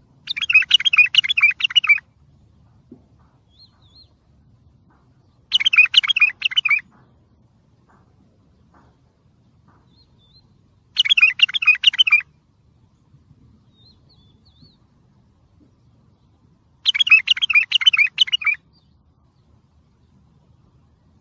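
Wild bulbul singing: four short warbling phrases, each about a second and a half long, repeated every five to six seconds.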